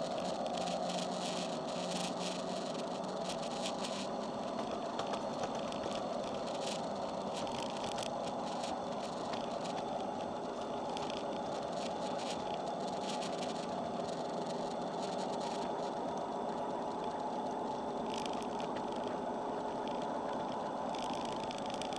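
Home-built 5-inch gauge ride-on model of a MaK 1200 diesel locomotive running along garden-railway track: a steady whine from its drive, with the wheels clicking and rattling over the rails.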